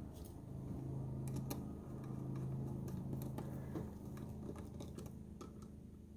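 Scattered light clicks and small taps of hands working wires and screws onto a duplex outlet, over a steady low hum that stops about four seconds in.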